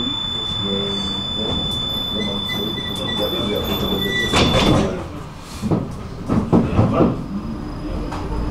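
Tram's door warning tone: a steady high beep for about four and a half seconds, ending as the sliding doors close with a loud thud. A few sharp clunks follow as the tram moves off.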